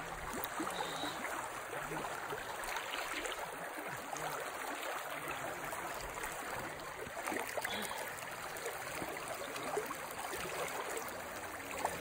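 Shallow, clear stream running fast over stones, a steady rushing of water.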